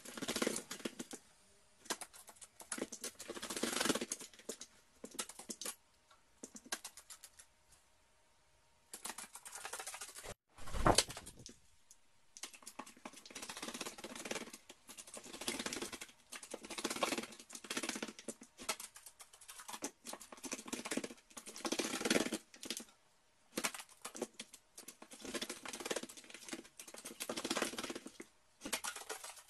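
Carrion crow bathing in a plastic basin of water, splashing and shaking its wings in repeated bouts of a second or two with short pauses between. One louder thump about eleven seconds in.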